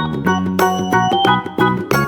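Background music: a bright, bouncy keyboard-style instrumental tune with a regular beat.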